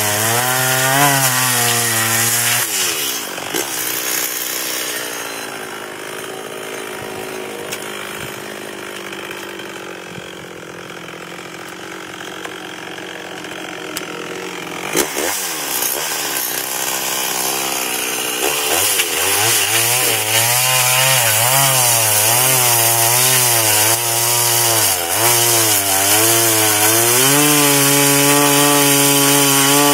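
Large chainsaw cutting through a tree trunk, its engine pitch wavering under load. About three seconds in it drops to a quieter idle. Near nineteen seconds it revs back up and cuts again, then holds a steady, higher pitch near the end.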